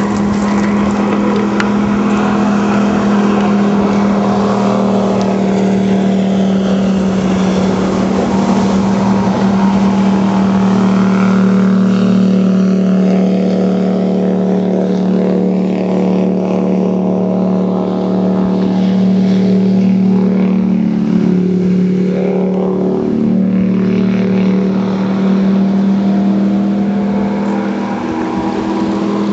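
Jet boat engine running at high, steady revs while the boat is driven through slalom turns, with a brief dip and wobble in pitch about three-quarters of the way through.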